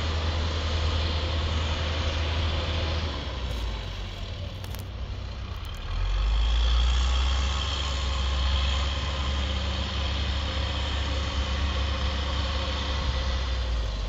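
John Deere backhoe loader's diesel engine running as it plows snow, a steady low drone that eases off about three seconds in and rises again about six seconds in as the machine works.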